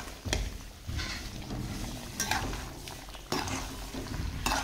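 Metal spoon stirring chicken gravy in a steel kadai, scraping and knocking against the pan a few times, roughly once a second.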